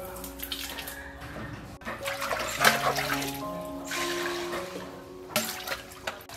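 Background music with held notes, over water pouring and splashing as rice-rinse water is tipped from an aluminium pot and water in a large clay jar is stirred up, in two short rushes about two and four seconds in.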